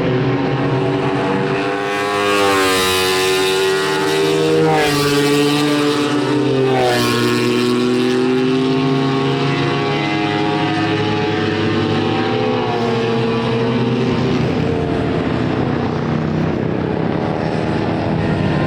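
Honda six-cylinder Grand Prix racing motorcycle engines running, with more than one engine heard at once. Their pitch swings up and down with the throttle, most of all in the first half, then settles to a steadier run.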